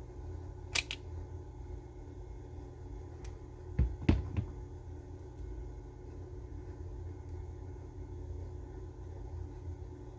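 A sharp double click about a second in, then a quick cluster of knocks around four seconds in, over a steady low hum.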